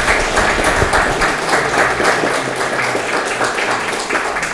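Audience applause from a room full of people clapping, fading toward the end.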